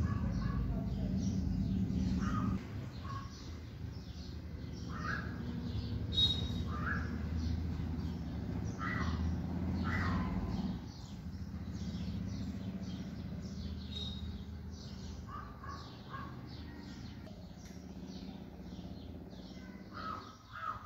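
Birds calling: rapid high chirps all through, with several louder, falling calls at intervals, over a steady low hum that drops away about halfway through.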